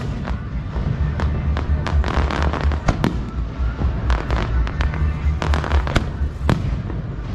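Fireworks display: an irregular run of sharp bangs and crackles, several a second, over a continuous low rumble, with a few heavier bangs about three seconds in and around six seconds in.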